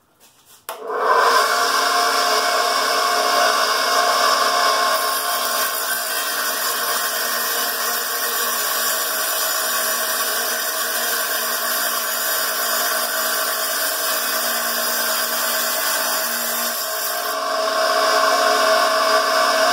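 Small 7-inch wet tile saw starts up about a second in and its motor runs steadily. From about 5 s to 17 s the blade cuts through a subway tile, adding a higher hiss on top of the motor; the cut goes easily, 'like butter'.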